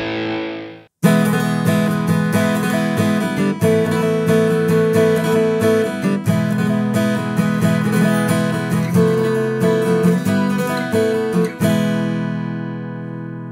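Belucci BC3820 WH steel-string acoustic guitar strummed in a chord progression, ending on a chord that rings out and slowly fades. The first second holds the fading end of the intro music.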